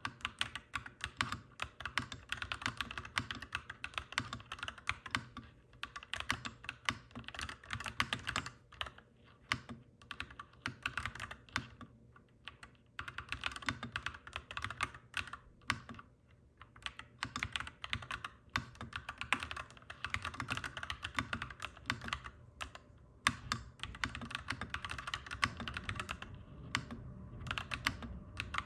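Clacky mechanical keyboard being typed on quickly, in runs of rapid key clicks broken by brief pauses, over a steady low hum.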